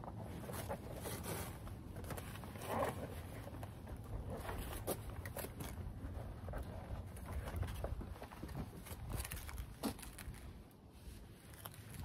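Irregular rustling with scattered light clicks and taps, over a steady low rumble.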